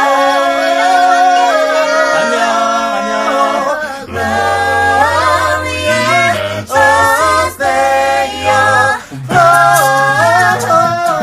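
A cappella vocal group singing in close harmony, several voices holding and shifting chords together; a low bass part comes in about four seconds in.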